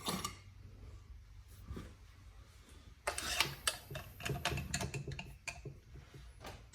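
Light, irregular clicking and tapping of hand tools and parts being handled on a Makita chainsaw as its muffler cover is taken off, starting about three seconds in.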